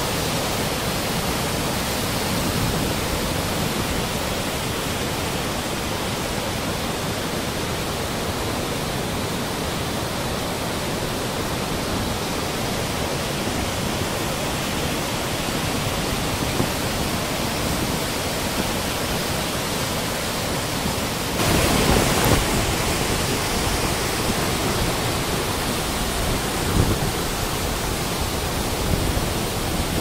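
Gullfoss waterfall's glacial river water rushing and crashing over the rocks in a steady, loud roar, swelling briefly louder about two-thirds of the way through.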